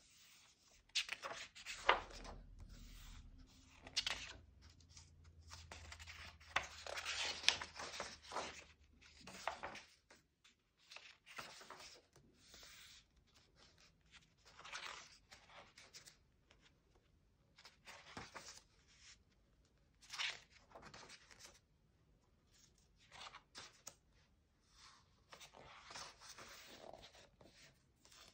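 Paper pages of a colouring book being turned one after another: irregular rustling swishes of paper, with hands sliding over the pages to smooth them flat.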